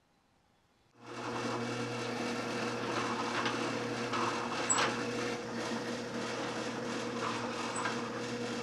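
Drill press running with a steady motor hum as its bit cuts holes through an MDF band-saw wheel, with a few louder scraping bursts of cutting a few seconds in.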